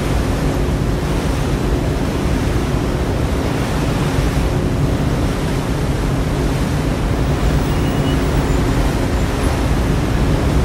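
Steady drone of a harbour ferry's engines, with a rush of wind and water around the boat.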